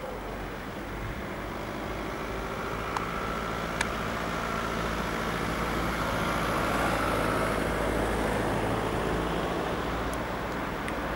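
Jet engines of an Airbus A340-213, its four CFM56 turbofans running: a steady rush with a high whine, slowly growing louder.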